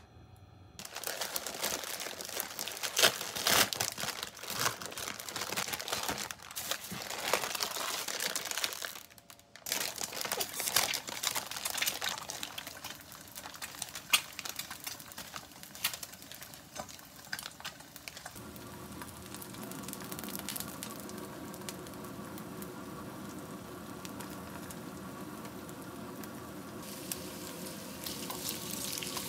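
Plastic instant-noodle packaging crinkling and tearing open, with dense sharp rustles through roughly the first two-thirds. Near the end, sliced beef brisket starts sizzling in a frying pan.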